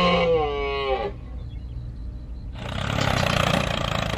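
A long, drawn-out animal call, its pitch arching up and then falling, ends about a second in. After a short lull with a low hum, a tractor engine sound starts about two and a half seconds in and runs steadily.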